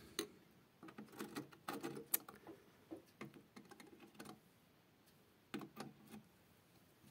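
Faint handling noise: light scattered clicks and rustles, mostly in the first four seconds, with a short cluster again at about five and a half seconds in.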